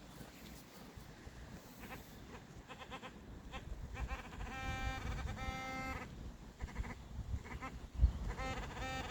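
Minelab Equinox 800 metal detector giving target tones: short blips, then two held beeps near the middle and another near the end, each a steady pitch. They signal buried metal targets under the coil. A single thump about eight seconds in, over faint rumble.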